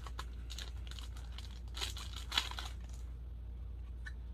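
Packaging being torn open by hand to get at a collectible pin: crinkling and tearing, with a short burst of rustling about two seconds in and a few small clicks around it.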